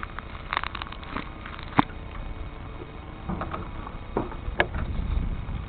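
Scattered clicks and knocks over a low wind rumble: handling noise on a small onboard camera as it is picked up off the ground, with one sharp knock about two seconds in.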